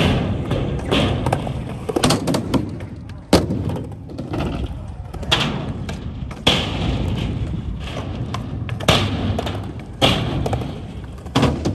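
Skateboards rolling on concrete with a steady rumble, broken by about eight sharp clacks and thuds as boards pop, land and strike the ramps. Voices can be heard in the background.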